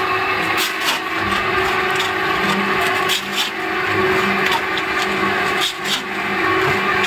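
Electric pan mixer running: its drive motor and gearbox hum steadily while the roller wheel and scraper blades churn and scrape a wet mix of soil, sand and lime around the steel pan. Sharp knocks and clicks come at irregular intervals.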